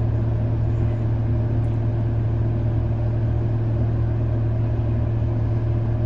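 A vehicle's engine idling steadily with an even low hum, held at idle with the accelerator untouched.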